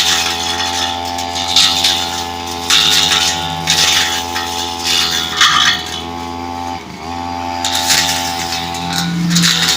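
Brush cutter engine running steadily at high revs, with repeated bursts of hiss as it cuts through thick undergrowth. The revs sag briefly about seven seconds in, then pick up again.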